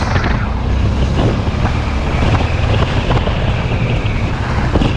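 Suzuki V-Strom motorcycle's V-twin engine running steadily while riding, with wind rushing over the microphone and scattered short knocks.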